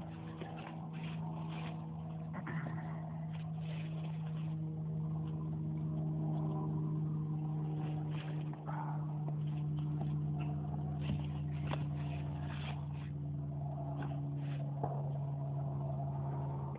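A steady low motor drone runs throughout, with scattered rustles and clicks from hands and a knife working in a deer carcass on dry leaves.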